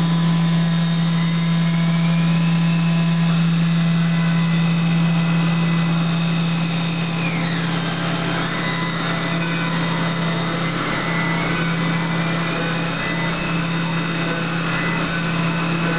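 Haas VF-2 CNC mill cutting with a half-inch three-flute Destiny Tool Viper endmill: a strong steady low hum under high whistling tones from the tool singing in its set-screw holder. About seven seconds in, as the floor finish pass begins, the whistles slide down in pitch and then climb back.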